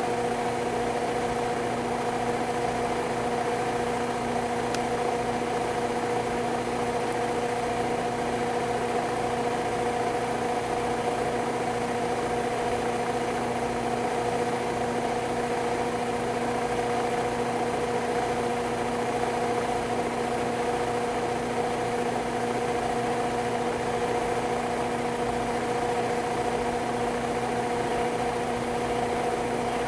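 Steady machine hum with a constant pitched drone that does not change.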